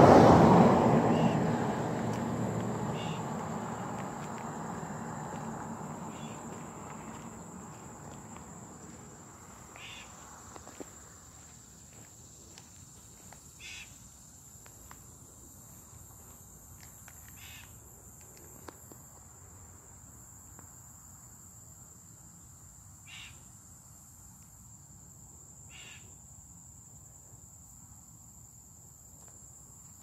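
A passing vehicle, loudest at the start and fading away over about ten seconds. Under it and after it, cicadas drone on one steady high note, with a few short calls from some other animal every few seconds.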